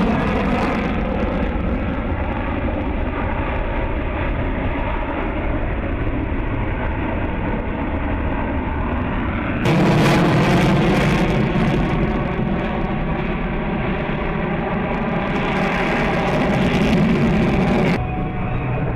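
Jet noise from the twin Pratt & Whitney F119 turbofans of an F-22 Raptor making a high-speed display pass: a steady, loud, rushing engine sound. It grows louder and harsher about ten seconds in and drops back shortly before the end.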